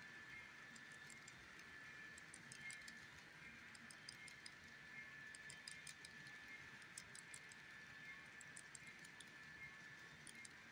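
Faint, irregular clicking of HO-scale model freight car wheels rolling over the rail joints, over a steady high tone.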